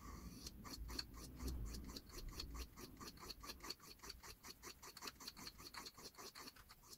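Knife blade scraping on a whetstone in quick, even back-and-forth strokes, several a second, while the edge is sharpened.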